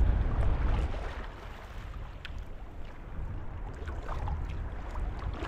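Wind rumbling on the microphone over a steady wash of sea noise, loudest in the first second and then easing, with a few faint clicks.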